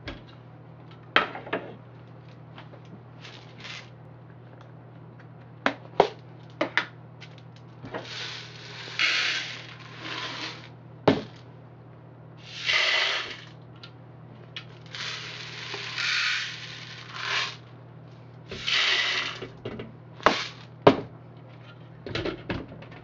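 Electric hot-air popcorn popper running: a steady low hum with scattered sharp clicks and several hissing bursts of about a second each.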